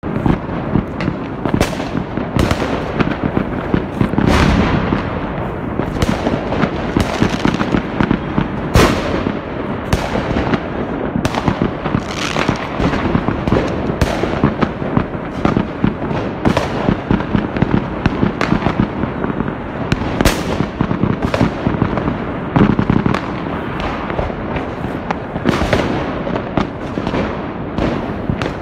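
Many fireworks going off at once: a dense, unbroken crackle of bangs, with sharper, louder reports about once a second.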